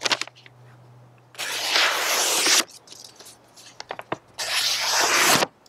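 Stainless knife blade slicing through a sheet of paper twice, each cut a rasping hiss about a second long, the first a little over a second in and the second near the end. The cuts are a paper-slicing check of how sharp the edge is.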